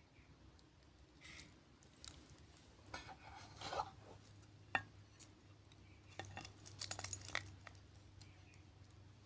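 Handling of a metal-link wristwatch and its tin gift box: the bracelet links clink and rattle in short clusters, with light clicks and one sharp click about halfway through.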